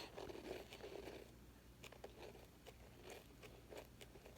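Faint crunching and chewing of a sugar cube in a child's mouth, a few soft, scattered crunches.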